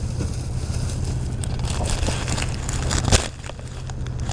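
Low steady rumble of an idling vehicle engine under rustling and handling noises, with one sharp knock about three seconds in.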